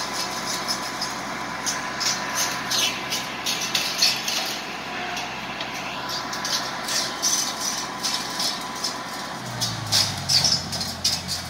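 Valtra 785 tractor's diesel engine running steadily while its boom-mounted rotary saw-disc hedge cutter chops through branches, with frequent short sharp cracks of wood being cut. The engine note shifts about nine seconds in.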